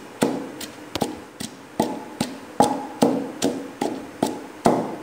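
Wooden pestle pounding a wet paste of garlic, green chillies, ginger and dried coriander in a stone mortar: steady knocks about two and a half a second, each with a short ring.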